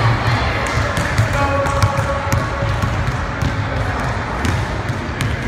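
A basketball dribbled on a hardwood gym floor, with sharp bounces at an uneven pace.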